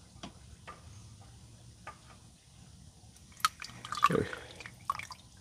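Engine oil dripping and trickling from the oil filter mount into a drain pan as the oil filter is spun off by hand. Scattered light clicks at first, then a louder cluster of clicks and splashing from about three and a half to five seconds in.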